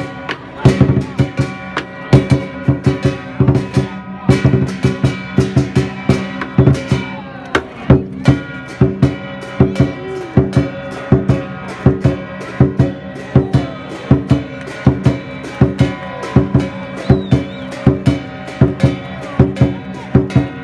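Lion dance percussion: a large drum beaten in a steady, driving rhythm with crashing, ringing cymbals.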